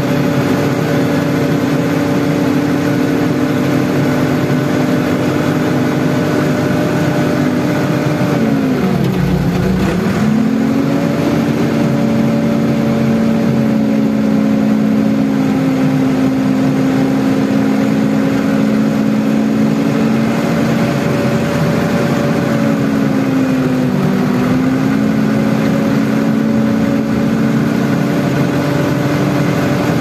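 Randon backhoe loader's diesel engine running at working speed, heard from the operator's cab. It bogs down sharply about nine seconds in and briefly again about twenty-four seconds in, then recovers each time: the engine lugging as the loader bucket takes the load.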